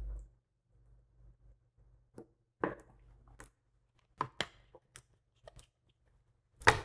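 Irregularly spaced short clicks and light knocks, about eight in all, with the loudest, sharpest one near the end, over a faint low hum.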